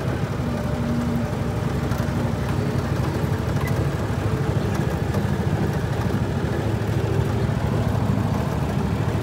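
A 2012 John Deere Gator utility vehicle's engine running steadily while driving, a continuous low rumble, with the tractor ahead running in the mix.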